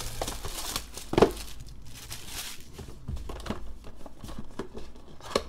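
Clear plastic wrap crinkling and tearing as it is pulled off a Topps Clearly Authentic trading-card box, with small clicks of the box being handled and one sharper click about a second in.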